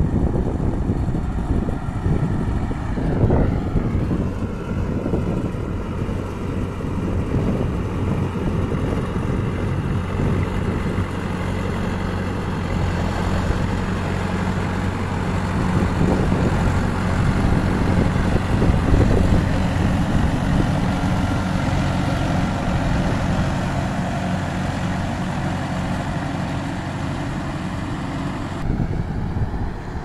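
Tractor's diesel engine running steadily under load as it pulls a rotary tiller through a flooded rice paddy, puddling the mud.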